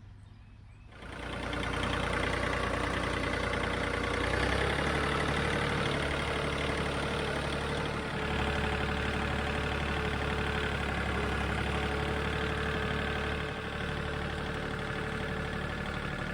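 John Deere 3025E compact tractor's three-cylinder diesel engine running steadily, coming in about a second in, with small changes in its note partway through.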